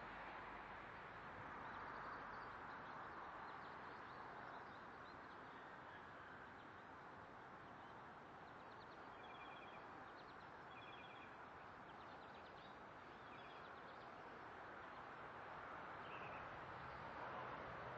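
Faint steady background hiss, with a bird giving several short, high, repeated chirps about halfway through.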